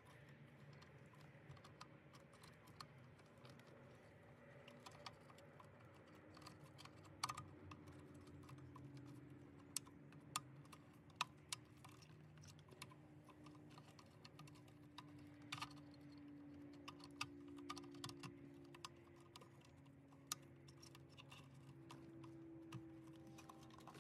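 Faint, scattered small clicks and taps from wiring connectors and harness clips being handled, over a faint steady hum.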